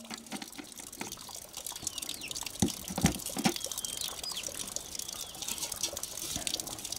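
Water trickling and splashing at an outdoor tap's concrete basin, with a few dull knocks about three seconds in. Small birds chirp in the middle.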